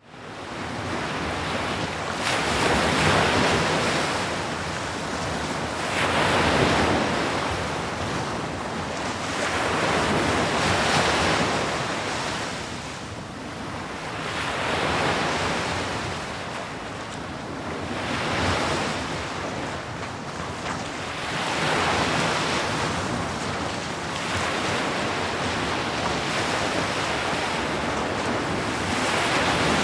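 Sea waves breaking and washing onto the shore, a rushing surge that swells and ebbs about every three to four seconds.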